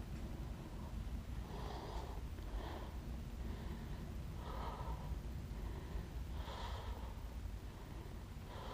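A person breathing heavily close to the microphone, with about five audible breaths a second or two apart, over a steady low rumble.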